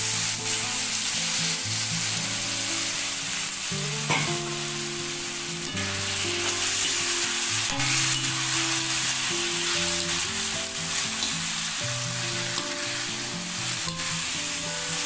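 Aubergine, potato and carrot pieces sizzling steadily in hot oil in a metal pan, stirred with a steel ladle that scrapes the pan once about four seconds in.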